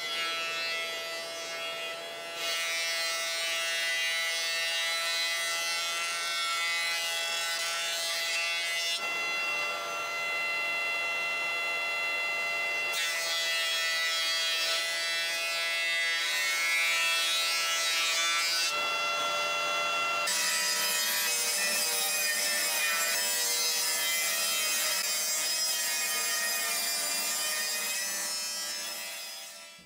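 Woodworking machines running and cutting timber: a thickness planer whining steadily as a board feeds through, and later a table saw ripping a board. The sound changes abruptly several times.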